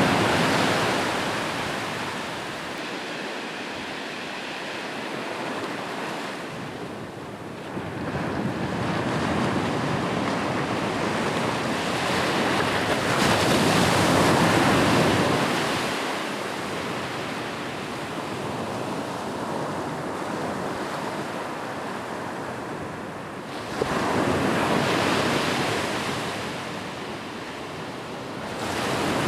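Ocean waves breaking and washing up on a beach, in slow surges that swell and fade about every ten seconds, the biggest near the start, in the middle and about three-quarters of the way in.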